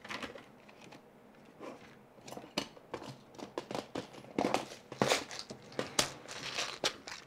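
Rummaging through a spare-screw set: irregular clicks, clinks and rattles of small screws and plastic parts being picked through.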